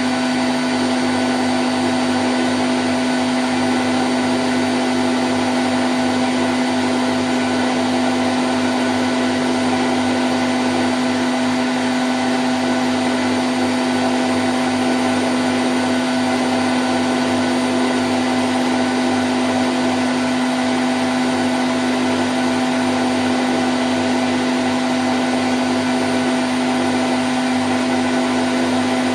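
Candy Grand O' F106 washing machine on its spin cycle at 1000 rpm: a steady whir with a strong low hum and fainter higher whines, unchanging in pitch.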